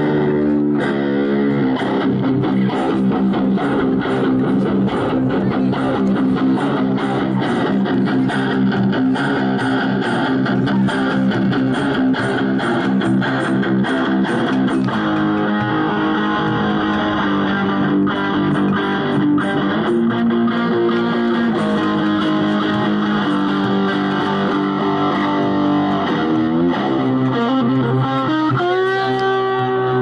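Double-neck electric guitar played through an amplifier: blues phrases of picked notes and held chords, with a string bent upward and held near the end.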